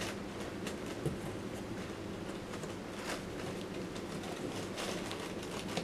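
Faint rustling and brushing as a cloth-and-mesh trucker cap is handled in gloved hands, over a steady low hum.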